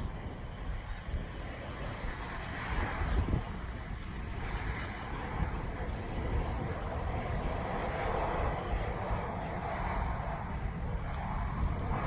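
Airplane engine noise, a broad rushing sound with a steady high tone, slowly growing louder as the aircraft draws nearer. Wind buffets the microphone underneath.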